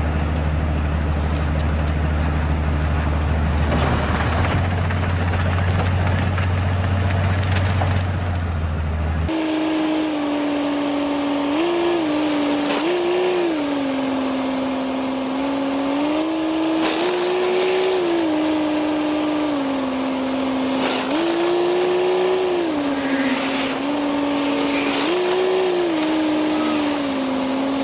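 Railway snow blower working through deep snow: a steady low engine drone, which changes abruptly about nine seconds in to a higher whine that steps up and down in pitch over and over.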